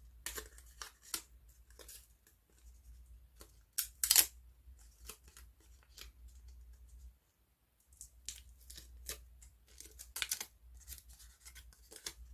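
Paper craft pieces and double-sided tape being handled, cut and torn at a table: scattered light rustles and clicks, with louder short rips about four seconds in and again about ten seconds in.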